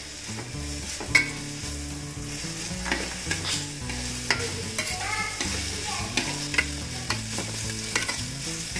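Sliced onions sizzling as they fry in ghee in a stainless steel pot, a metal slotted spoon stirring them and clinking and scraping against the pan every second or so, loudest about a second in. The onions are being fried until they brown.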